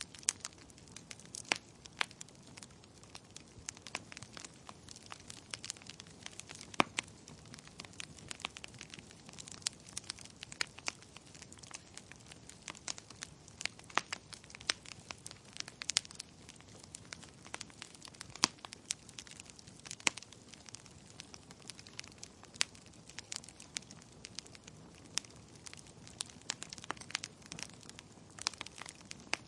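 Wood logs burning in a fireplace, crackling with irregular sharp snaps and pops over a low, steady hiss of the flames, several of the pops louder than the rest.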